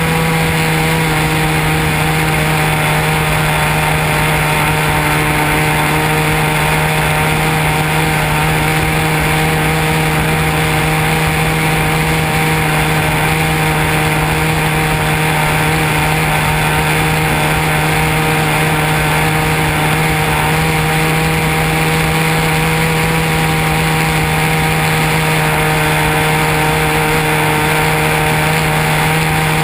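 Propeller-driven model airplane in steady flight: its motor and propeller drone at one held pitch, with wind rushing over the onboard camera.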